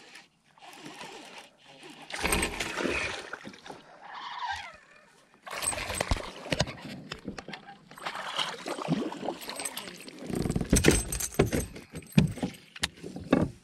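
Irregular knocks, clicks and rattles of hard gear being handled, coming in clusters with short pauses between.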